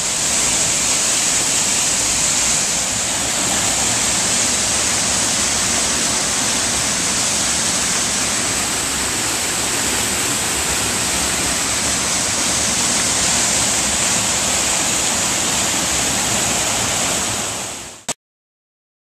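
Waterfall: white water pouring over rock ledges in a gorge, a steady rushing noise that fades and cuts off to silence near the end.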